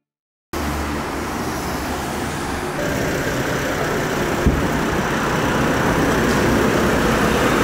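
Road traffic noise from cars and a van passing through a city intersection, steady and fairly loud. It starts about half a second in after a moment of silence, with one short click about halfway through.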